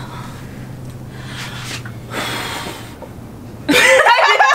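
A girl blowing hard at a row of lit candles, a few puffs of breath, then loud laughing and voices starting near the end.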